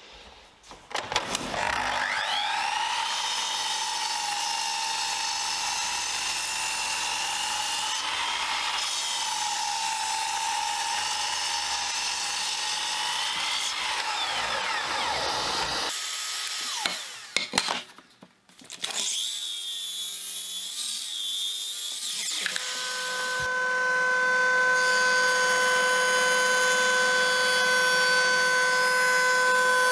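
Sliding mitre saw whining up to speed, then cutting through a thick wooden board for about twelve seconds before spinning down. Later a jointer starts and runs with a steady hum.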